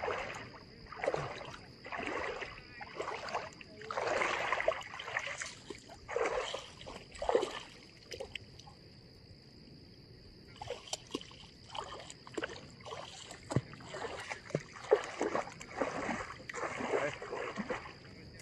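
Shallow water splashing and sloshing around wading legs, in separate bursts about once a second like steps, with a lull of two or three seconds partway through.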